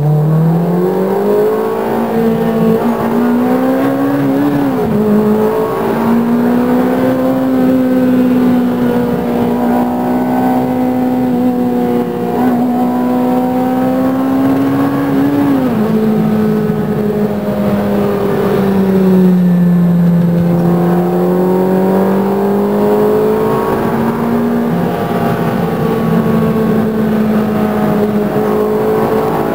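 Engine note of a Novitec-tuned Ferrari 360 Challenge Stradale V8, heard from inside the cabin. The revs climb over the first few seconds with a brief dip around five seconds in, then hold steady while cruising. About fifteen seconds in they drop, sag lower for a few seconds, and rise back to a steady note for the rest.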